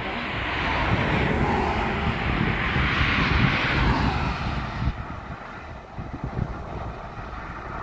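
Thunder rolling after a lightning strike, a broad rumble that swells to a peak about three seconds in and dies away after about five seconds.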